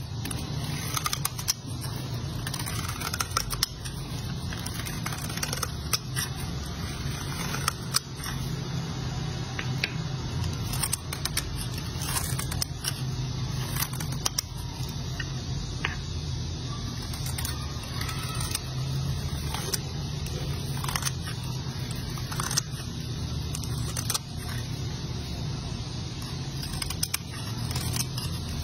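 A flat razor blade slicing thin strips into a dry, cracked bar of white soap: crisp scraping and crackling as each slice is cut, with many small sharp clicks at irregular moments.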